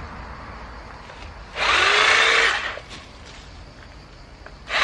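Handheld electric saw cutting back vines growing on a wall, triggered in short bursts. It runs for about a second, starting about one and a half seconds in, its motor pitch rising as it spins up. It starts again just before the end.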